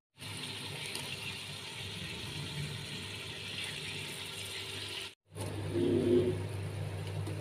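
Steady hiss over a low hum from a pot of vegetables cooking on the stove as shredded cabbage is tipped in, cut off twice by brief dropouts.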